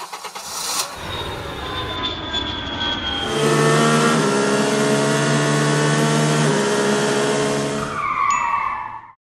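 Vehicle engine sound effect: a rushing start, then from about three seconds in a steady engine drone that rises slightly in pitch, ending in a short swooping sound before it cuts off.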